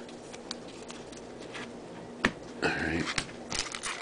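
Baseball trading cards handled and shuffled by hand, with a sharp click a little over two seconds in and a short pitched sound just after. Near the end a foil card pack starts crinkling as it is picked up to be opened.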